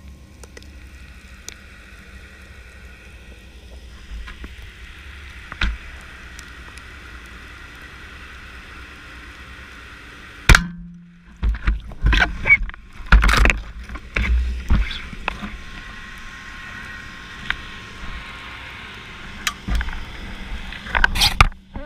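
Steady underwater hiss, then about halfway through one sharp crack of an LG Sub Revolution speargun firing, followed by several seconds of loud knocks and clatter; a few more knocks come near the end.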